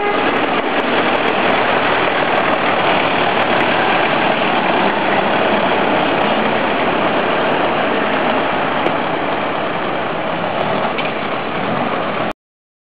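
Small tractor engine running steadily as the tractor drives past; the sound cuts off abruptly near the end.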